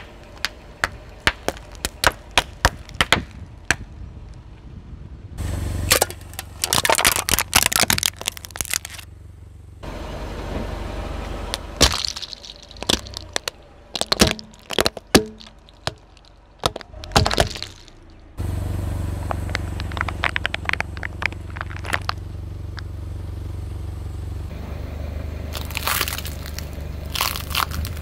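Things cracking and snapping under a car's tyre: many sharp cracks in clusters, some stretches over the low steady hum of the car. The background changes abruptly several times between crushes.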